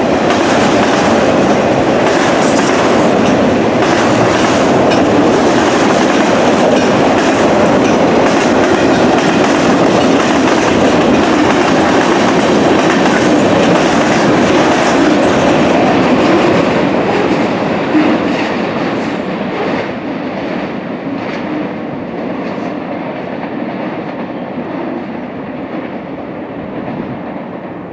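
Freight cars of a Norfolk Southern manifest train rolling past through a junction, wheels clicking over the rail joints and crossover frogs. The noise is steady and loud, then fades gradually in the last third as the train draws away.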